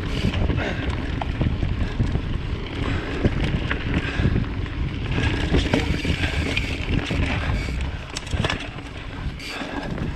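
Mountain bike riding on a dirt forest singletrack: knobby tyres rolling over the trail with scattered small rattles and clicks from the bike, and wind buffeting the microphone.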